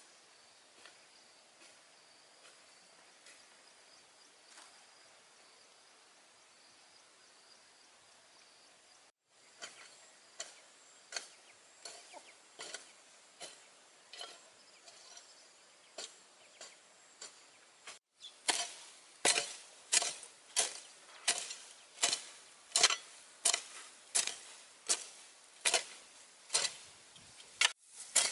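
Faint steady insect chirring, then, after cuts, scattered taps and finally sharp chopping strikes about two a second, like a blade on a wooden board.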